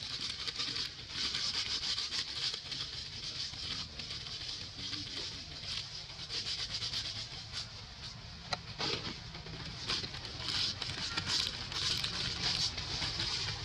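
Steady high-pitched hiss of outdoor ambience, with many scattered soft crackles and rustles and a low rumble underneath.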